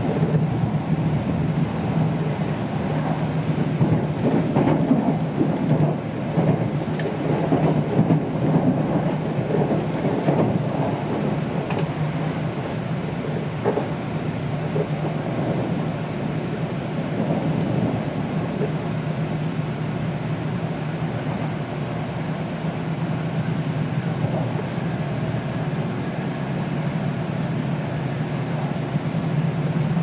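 Running noise of an E2 series Shinkansen heard inside the car: a steady low rumble with a constant hum under it, rougher and louder for the first dozen seconds.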